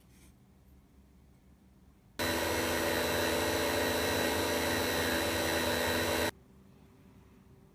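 A small electric motor-driven machine whirring steadily at full speed for about four seconds, switched on about two seconds in and cut off abruptly.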